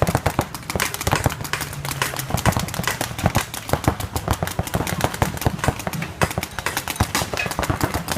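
Mechanical paintball markers firing from several players at once, a rapid, irregular stream of sharp pops that overlap.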